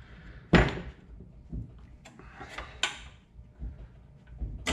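Knocks and clatter of a cordless drill-driver and metal parts being handled while bolting the head back onto a Gast PCA-10 compressor: one loud knock about half a second in, then a few short bursts of clatter and whirr.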